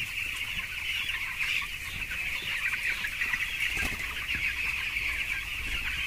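A large flock of 14-day-old broiler chicks peeping continuously, many high calls overlapping into one steady chorus. The calls come from a lively, active flock.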